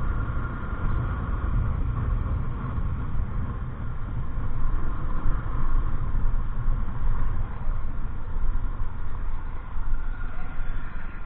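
Steady vehicle noise: a low, dense rumble of engine and road with a noisy band higher up, no horn sounding.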